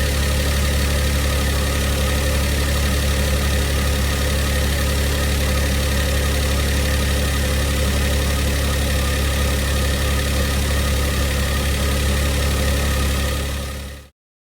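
Mitsubishi i's small three-cylinder engine idling steadily, the sound the owner recorded to show its abnormal noises: a rattle he traces to a failing air-conditioning compressor strained by a new auto-tensioner, and a whirring he believes comes from inside the engine. The sound fades near the end and cuts off.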